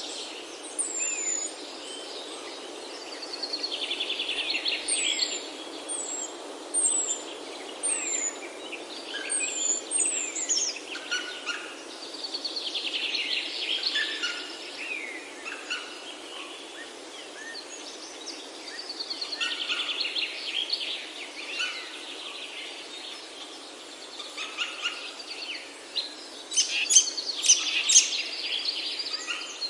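A chorus of wild birds singing over one another. High, thin, down-slurred notes repeat about once a second in the first third, among trilled songs, and there is a steady low hiss of background noise underneath.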